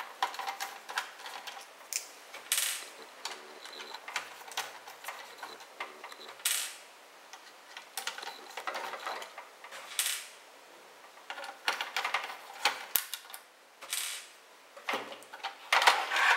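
A screwdriver turning out the small screws that hold a CD player's logic board: a run of small clicks and metal scrapes, with a louder scrape every few seconds. Near the end comes a burst of plastic handling noise as the board is taken in hand.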